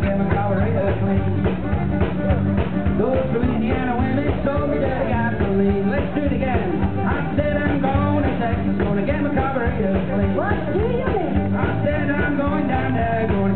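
Live Cajun band music from an open-air stage PA: electric guitar and fiddle playing a dance tune with a steady beat.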